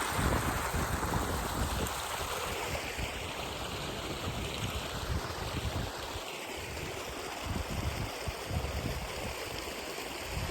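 Mountain stream running over rocks: a steady rush of water, with an irregular low rumble underneath.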